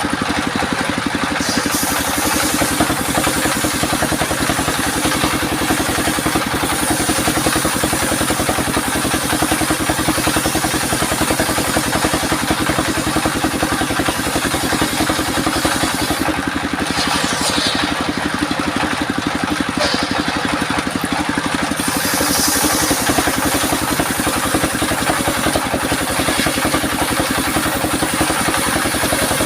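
Homemade circular saw sawmill running continuously while sawing albasia (sengon) timber, a steady machine drone with a hiss over it. The hiss drops away for a few seconds just past the middle, then comes back.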